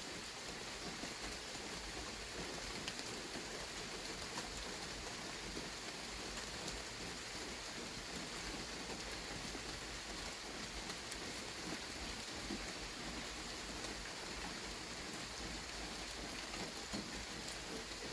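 Steady rain falling, an even hiss dotted with faint patter of drops.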